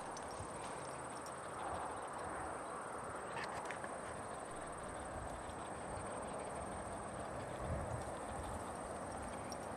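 Footsteps on a dry dirt trail and rustling through dry grass and brush, with a few light clicks.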